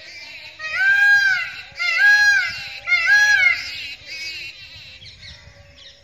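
Indian peafowl giving its loud call three times in quick succession, each call rising, holding and then falling in pitch.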